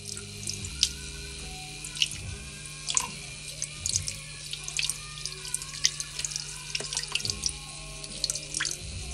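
Kitchen tap water running into a plastic tub and splashing over two raw Cornish hens as they are rinsed, a steady stream with many small splashes and drips throughout.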